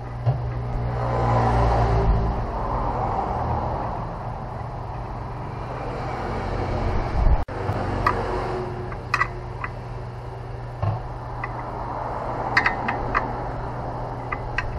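A steady mechanical hum with a low drone, broken off suddenly about seven seconds in, followed by a handful of short, sharp clicks.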